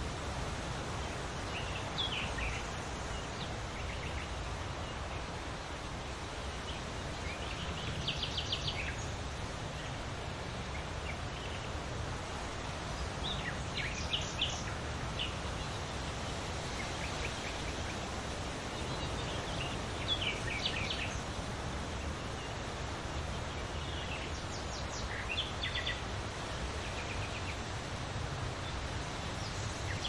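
Wind blowing steadily through trees with rustling leaves, and a small bird's quick chirping trills breaking in every five or six seconds.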